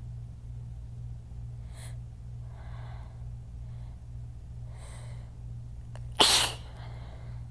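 A woman's sneezing fit: a few sharp in-breaths build up, then one loud, forceful sneeze about six seconds in.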